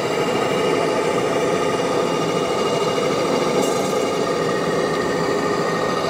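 A steady engine sound from the sound modules of radio-controlled model trucks and construction machines, mixed with the even din of a busy exhibition hall.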